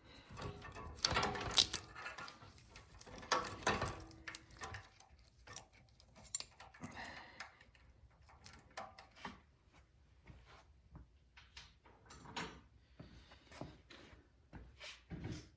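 Irregular light clicks, taps and rattles of a screwdriver and small metal and plastic parts being handled, as the carburetor's choke and throttle linkage is taken apart on a snowblower engine.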